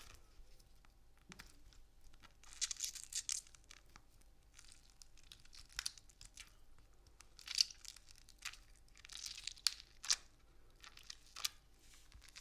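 Fruit being crushed and torn apart for gore sound effects: a string of irregular crackling, tearing bursts with several sharp snaps, the loudest about seven and a half seconds in.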